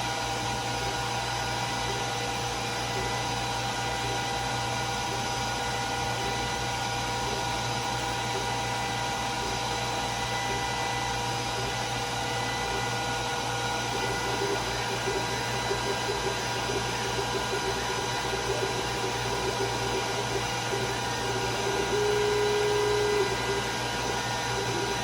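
Glowforge Plus laser cutter running a cut: a steady fan and exhaust whir with several steady tones. From about halfway the laser head's motors add a rapid stuttering buzz, with one short held tone near the end.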